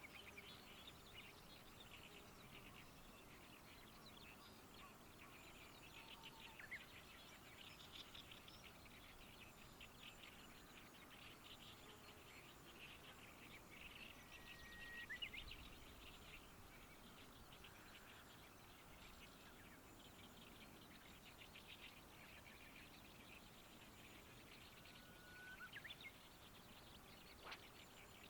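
Faint outdoor ambience of birds chirping in a dense, rapid chatter, with a couple of short whistled notes about halfway and near the end, and one sharp click just before the end.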